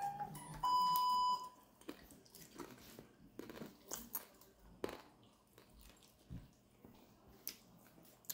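A dog crunching and chewing popcorn picked up off a tile floor, in scattered short crunches and clicks. Near the start, a steady electronic beep lasts just under a second and is louder than the chewing.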